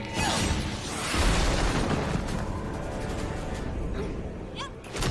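Action-scene soundtrack from an animated series: a heavy boom swelling about a second in into a long rumbling crash noise, with music underneath.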